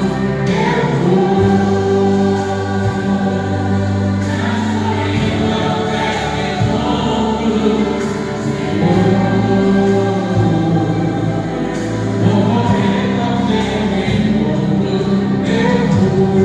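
Worship vocal group singing a gospel song together, several voices holding sustained notes over steady low accompanying notes.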